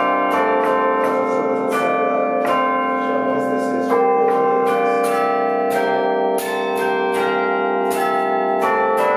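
Church bells ringing in sequence: strikes come less than a second apart, and each long ringing tone overlaps the next.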